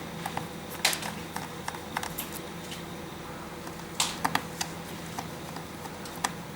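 Light, irregular clicks and taps of a precision screwdriver and small screws and metal parts being handled while screws are undone, with the sharpest clicks about a second in and a quick cluster about four seconds in. A faint steady hum lies underneath.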